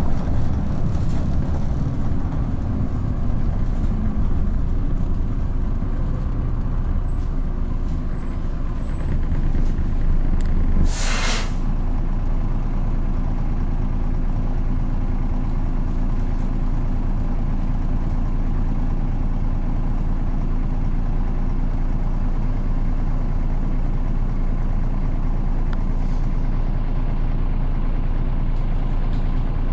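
Dennis Dart SLF bus's diesel engine heard from inside the cabin, running unevenly as the bus slows, then a short, loud hiss of released compressed air about eleven seconds in. After it, the engine idles steadily while the bus stands still.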